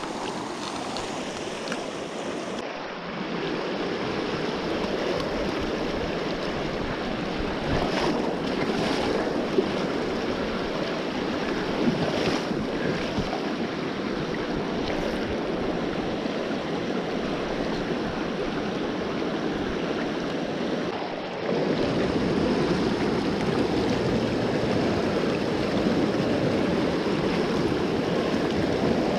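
Mountain creek rushing over rocks and riffles: a steady water noise, stepping louder about 21 seconds in.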